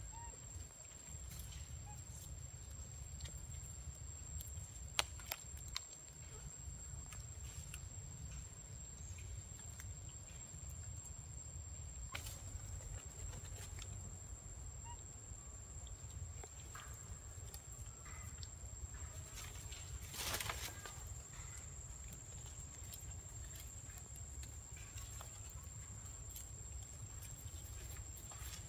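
Forest ambience with a steady low rumble and a thin, steady high-pitched whine, broken by a few sharp clicks and rustles of macaques moving in the branches, the loudest a short rustle about 20 seconds in.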